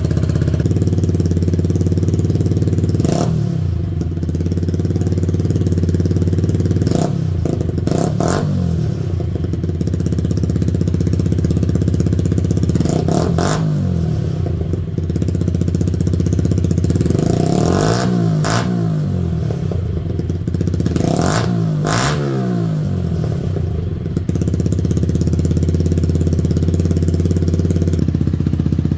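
Yamaha YZF-R125's single-cylinder 125 cc four-stroke engine idling steadily through the exhaust under test. The throttle is blipped in short revs every few seconds, some of them in quick pairs.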